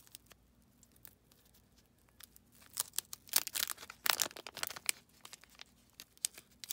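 Wax-paper wrapper of a 1981 Donruss trading card pack being torn open and crinkled by hand: faint ticks at first, then a run of loud crackly tearing bursts from about three seconds in, and more near the end.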